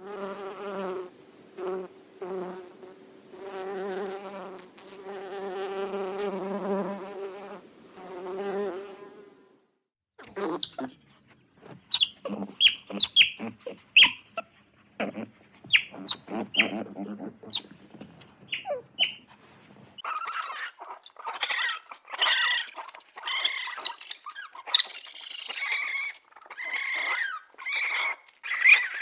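Animal sounds in three cuts. First, a steady buzz like a flying insect, pulsing for about nine seconds. Then a run of short, sharp chirps, followed from about twenty seconds in by quicker, higher-pitched calls.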